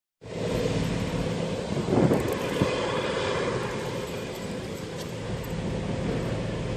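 Steady low engine drone with some wind noise on the microphone, and a louder thump about two seconds in.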